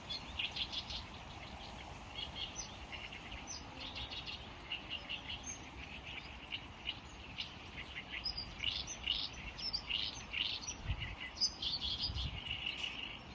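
Wild birds chirping: many short, quick high calls overlapping over a faint outdoor hiss, with a couple of dull low thumps about three quarters of the way through.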